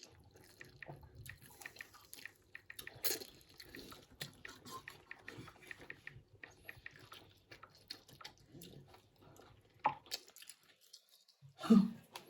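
Chewing and mouth sounds of people eating instant noodles: a run of small wet clicks throughout, with one short louder sound about a second before the end.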